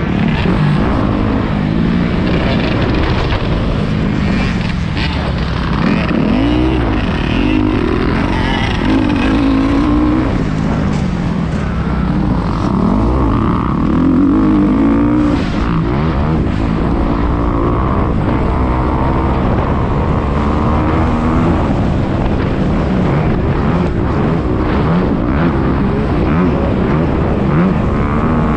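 Motocross dirt bike engine revving hard and dropping back over and over, its pitch rising and falling as the throttle opens and closes through a practice lap. It is heard close from a GoPro on the rider, over a steady rushing noise.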